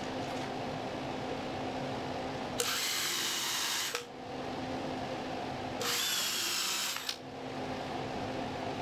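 Cordless DeWalt drill boring holes through plywood in two bursts of about a second and a half each, the first some two and a half seconds in and the second near six seconds. A steady low hum runs underneath.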